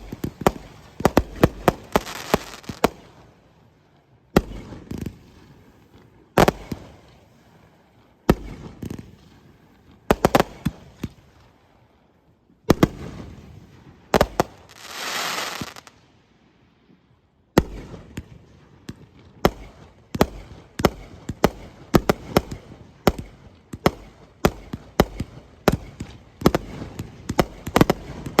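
Fireworks going off in volleys of sharp bangs, with short pauses between volleys. About halfway through there is a hiss lasting a second or so. Through the last third the bangs come in a fast, unbroken string, several a second.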